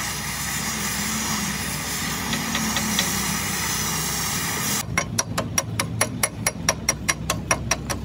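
Oxy-fuel cutting torch hissing steadily as it burns through the worn centre pin of a Cat motor grader. About five seconds in the hiss cuts off and gives way to rapid hammer taps on metal, about five a second.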